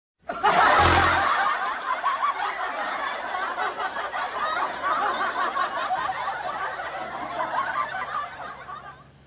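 Laughter sound effect: snickering and chuckling that cuts in abruptly, loudest about a second in, and fades out near the end.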